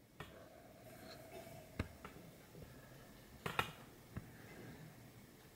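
Quiet room tone with a handful of faint clicks and taps, the loudest a quick double click about three and a half seconds in, and a faint steady hum through the first second and a half.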